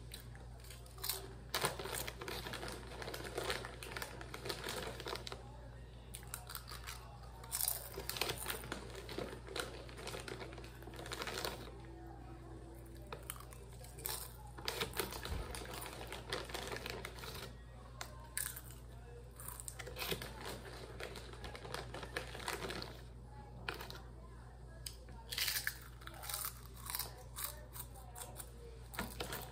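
Potato chip bag crinkling in irregular bursts as a hand reaches in, with chips crunched and chewed between the rustles. A steady low hum runs underneath.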